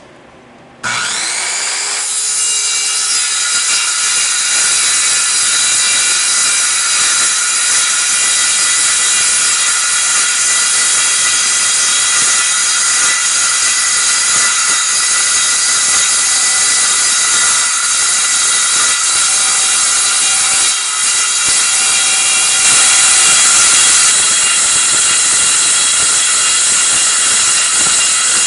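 Circular saw with a carbide-tipped blade starting up about a second in and cutting through half-inch-thick 6061 aluminum plate: a loud, steady, high-pitched screech. It dips briefly about three-quarters of the way through, then runs slightly louder for a moment.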